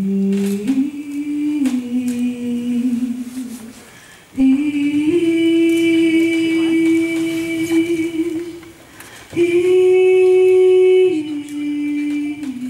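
A group of voices sings long held notes, three in a row, each a few seconds long and separated by short breaks. The pitch steps up once within the first note and down once within the last.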